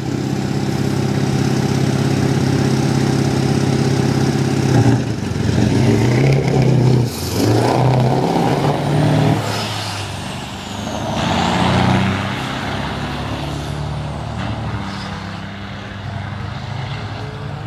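Scania V8 diesel cabover tractor held at high revs, then launching and accelerating hard with a second truck alongside. The engine note climbs and drops a few times as it shifts up, then fades as the trucks run away down the strip.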